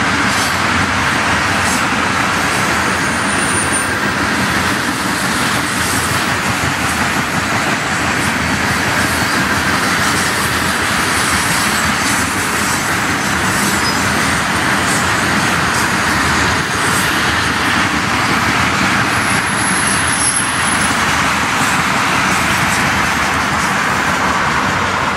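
Freight train tank cars rolling past close by: a steady rush and rumble of steel wheels on rail with faint wheel clicks, and twice a brief faint high squeal.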